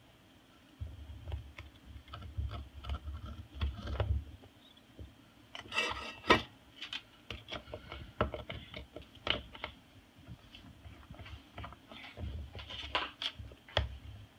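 A Moluccan cockatoo working at shredded sugarcane and a squash rind with its beak and feet on a counter: irregular clicks, knocks and rasping scrapes, the sharpest click a little past halfway.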